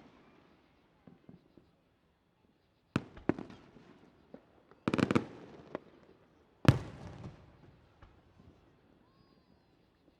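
Aerial fireworks bursting: a few faint pops about a second in, then three rounds of sharp booms about two seconds apart, each trailing off in echo. The third boom is the loudest.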